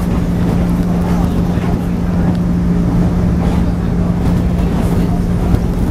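JNR 113 series electric train running at speed, heard from inside the passenger car: a steady rumble of wheels on rail with the MT54 traction motors humming at one constant low pitch.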